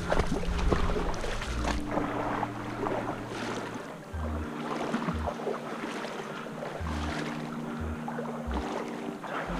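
Background music: sustained synth notes over short, blocky bass pulses, with a steady noisy hiss and crackling underneath.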